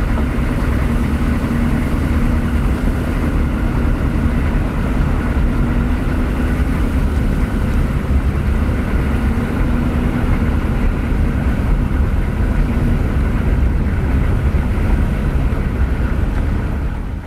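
Pickup truck driving on a dirt road, heard from inside the cab: a steady low drone of engine and tyres rolling over the dirt, with a faint engine hum.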